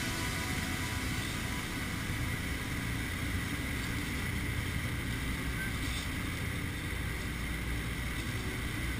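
Steady drone of a Douglas DC-3's twin radial engines, heard from inside the fuselage.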